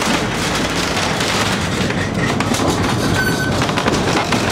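Steady running noise from inside a moving passenger vehicle, with rattles and clicks and a short high squeal about three seconds in.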